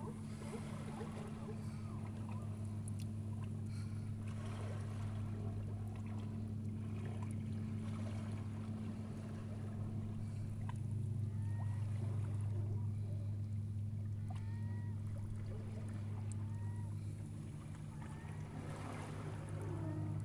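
A steady low motor hum. About halfway through, a run of short chirps sounds over it.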